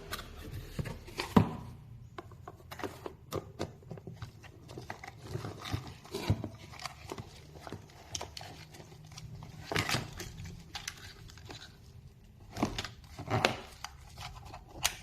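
Light, irregular taps, knocks and clicks of objects being handled, with a few louder knocks about a second and a half in, around ten seconds, and near the end.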